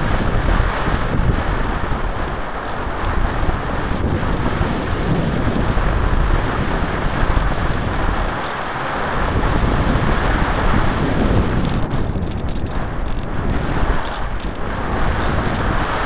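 Steady rushing wind noise of airflow buffeting the microphone of a camera carried on a gliding ASW 28 sailplane.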